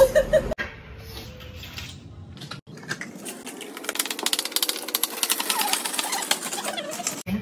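Hand-pulled pull-cord food chopper chopping vegetables, its blades spinning with a rapid rattling whirr as the cord is pulled again and again through the second half.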